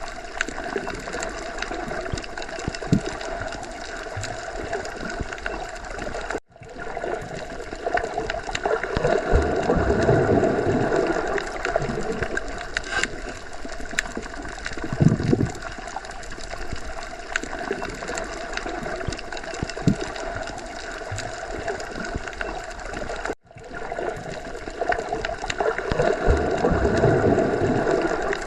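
Underwater ocean ambience: a muffled, continuous wash of moving water with gurgling and bubbling. It swells louder a few times and cuts out for an instant twice.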